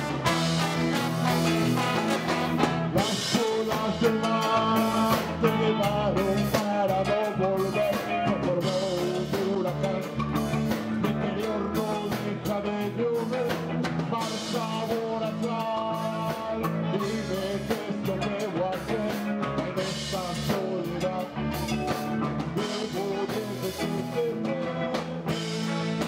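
Ska band playing live: drum kit, electric guitar, timbales and trombone, with a sung vocal over the top.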